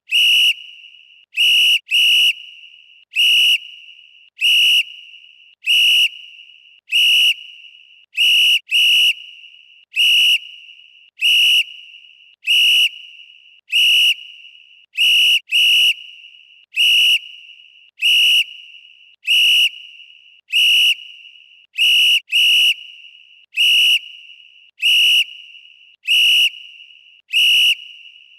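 Referee whistle blown in short, sharp, high blasts, roughly one a second, now and then two in quick succession. Each blast dies away in a brief fading tail.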